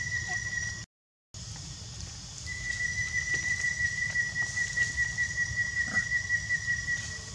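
A steady high-pitched whistle-like tone that cuts out about a second in, returns about two and a half seconds in and stops near the end, over a low rumbling noise.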